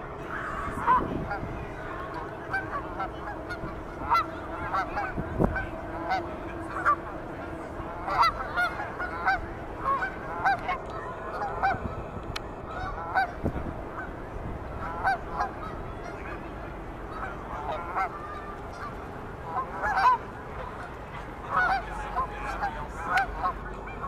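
A flock of geese honking, many short calls overlapping and repeating throughout, with a couple of low thumps along the way.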